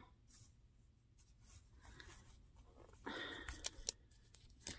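Faint rustling and a few light clicks as a skein of yarn is turned over in the hands.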